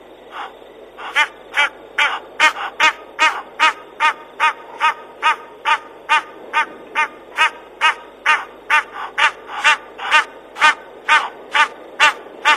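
An animal calling the same short note over and over, about two to three calls a second. The calls become louder and more regular about a second in.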